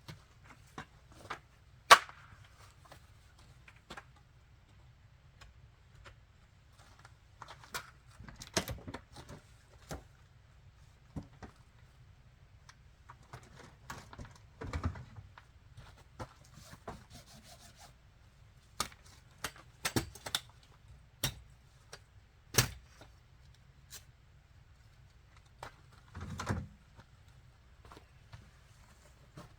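Scattered clicks, knocks and short thuds of camp gear being handled and packed, the sharpest click about two seconds in, over a faint steady low hum.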